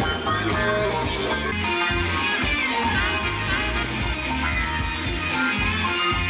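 Music with a strong bass line played back through floor-standing hi-fi speakers and picked up by a microphone in the room, as a speaker sound test.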